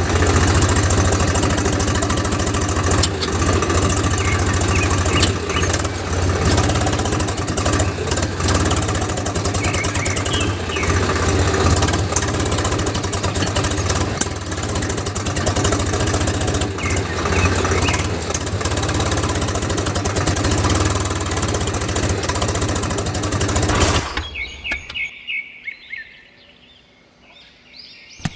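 A tractor-like engine sound running steadily with a fast, even low pulse, then cutting off abruptly about 24 seconds in. Birds chirp faintly after it stops.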